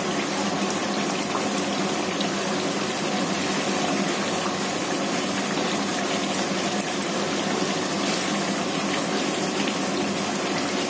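Tomato masala sizzling and bubbling in hot oil in a kadhai while a spatula stirs it, a steady, even sizzle. It is the bhunai stage: the masala is being fried down until the oil separates.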